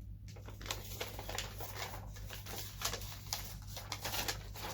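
Paper rustling and crackling as a large folded instruction leaflet is unfolded by hand, a quick irregular run of crisp rustles.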